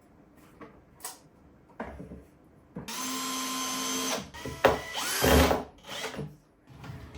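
Cordless drill-driver driving screws, running in two short bursts of about a second and a half each; the second rises in pitch as it spins up. A few light knocks of handling come before and after.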